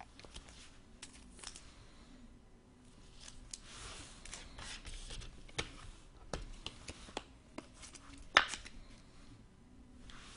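Trading cards being handled: soft rustling with scattered light clicks and taps, and one sharper click about eight seconds in.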